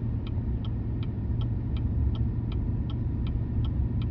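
Chevy 3500 dually pickup running down the highway, heard from inside the cab: a steady low engine and road rumble. A light, even ticking about three times a second runs over it.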